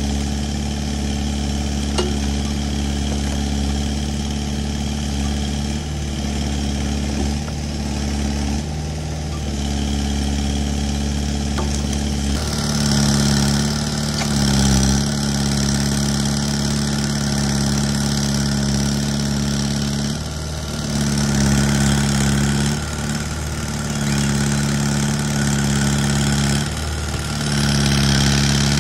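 Kubota excavator's diesel engine running steadily, then louder from about twelve seconds in, with brief drops in level a few times after that.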